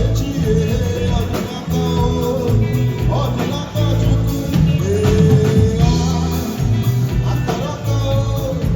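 Live band playing highlife with a lead vocal over electric guitar, bass and drum kit, in a steady groove.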